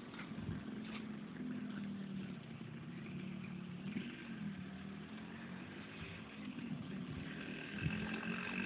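Motor and propeller of a radio-controlled Cessna 206 model plane droning steadily in flight. A higher whine joins near the end.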